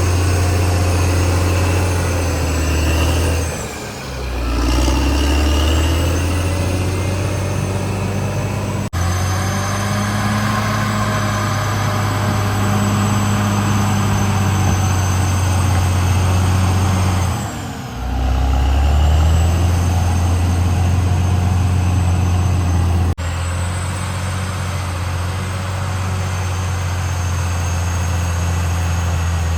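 Caterpillar D6R XL bulldozer's diesel engine running steadily under load. Its revs sag and pick up again twice, about four seconds in and again about eighteen seconds in. Sharp clicks about nine and twenty-three seconds in break the sound.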